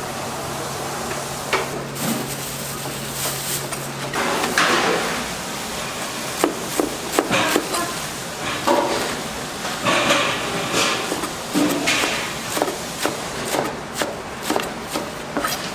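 Kitchen knife chopping a bundle of red-stemmed chard on a plastic cutting board: an irregular run of sharp knocks as the blade strikes the board.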